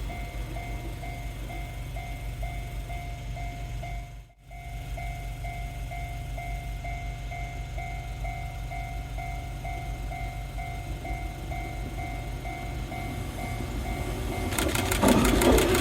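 Japanese level-crossing warning bell ringing in a steady repeating electronic ding, about one and a half strikes a second, dropping out for a moment about four seconds in. Near the end a Nishitetsu 3000-series electric train arrives at the crossing, its wheels clattering over the rail joints and growing loud.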